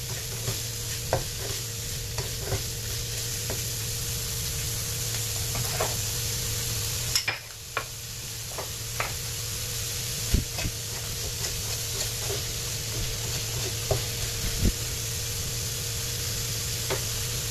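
Chopped onion and garlic sizzling in butter in a nonstick wok, with scattered taps and scrapes of a plastic spatula stirring them.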